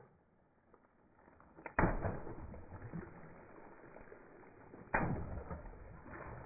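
Water-filled balloons bursting under a slowly rolling car tyre on asphalt: two sharp pops, about two seconds in and again about three seconds later, each followed by water splashing and spattering across the road.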